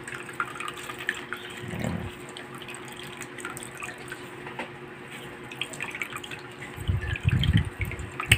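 Salty soaking water dripping and trickling from grated santol wrung hard in a cloth over a plastic strainer into a steel bowl, with small wet splashes and drips throughout. A couple of low muffled bumps come about two seconds in and near the end.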